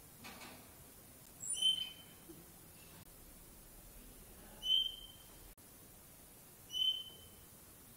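Chinchilla giving three short, high-pitched squeaks, a few seconds apart.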